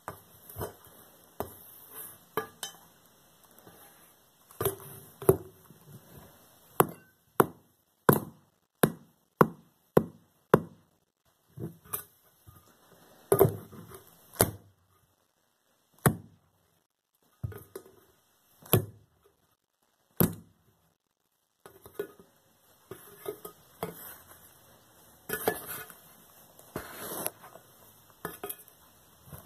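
A silver-plated teapot being stamped on and crushed by high-heeled boots: a long run of irregular metallic knocks and clanks as the heels dent the thin metal. In the middle the stamps come in a quick even series, about one every two-thirds of a second.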